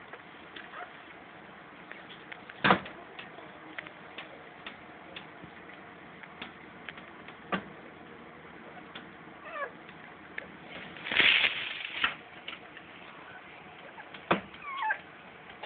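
Newborn puppy giving thin, high mewling squeaks, a few short rising and falling cries about 9 to 10 seconds in and again near the end. Scattered sharp clicks, the loudest about 3 seconds in, and a short burst of rustling about 11 seconds in.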